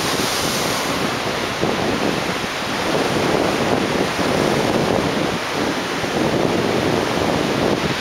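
Choppy ocean surf breaking and washing across a flat rock shelf: a steady rushing of water, with wind buffeting the microphone.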